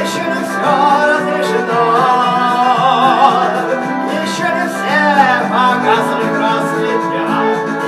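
Music from the song: steady held chords under a wavering melody line with vibrato, louder in two swells about two and five seconds in.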